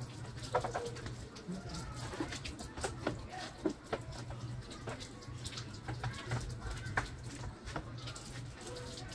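Garden hose spraying water onto a motorcycle, with scattered small clicks and knocks. A steady low hum sits under it, and birds call in the background.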